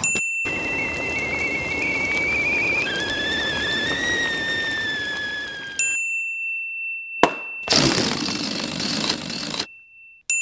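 A game-show ding sounds three times, each one introducing a short sound effect played as a prompt. After the first comes a wavering whistle over a steady hiss that steps up in pitch about halfway. After the second comes a sharp crack, then about two seconds of hissing noise.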